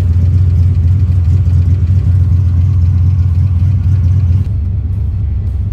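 Turbocharged 331 cubic-inch small-block Ford V8 in a Fox-body Mustang idling steadily with a deep, even note. About four and a half seconds in the sound abruptly becomes quieter and duller.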